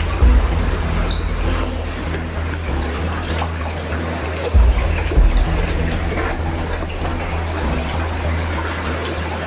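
Floodwater sloshing and splashing as someone wades through a flooded room, over low background music with a repeating bass pattern.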